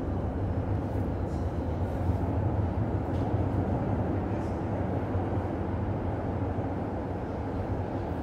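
CTA Blue Line subway train approaching through the tunnel: a steady low rumble.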